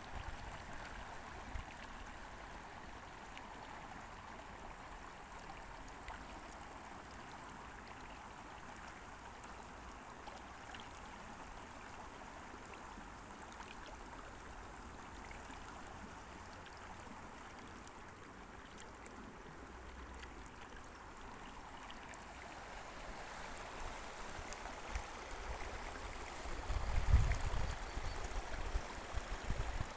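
Shallow creek running over stones and pebbles: a steady, gentle babble of flowing water. Near the end a few low rumbling bumps rise over it.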